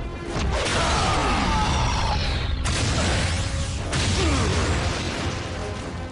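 Animated sci-fi sound effect of a swirling energy portal: a dense whooshing rush with several falling sweeps. It cuts off sharply about two and a half seconds in, then builds again.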